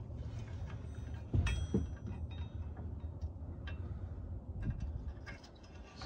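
Light metallic clicks and clinks from the steel latch plate and spring pin of a Boss Smarthitch 2 plow hitch being handled and fitted, over a steady low hum. The strongest pair comes about a second and a half in, with a brief ring, and fainter clicks follow later.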